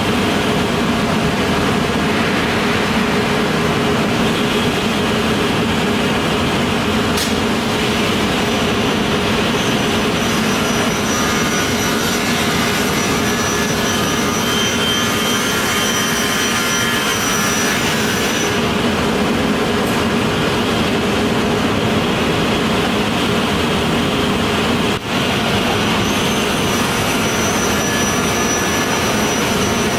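Loud, steady industrial machinery noise with a low hum, and high thin whining tones that come and go. The level dips briefly about 25 seconds in.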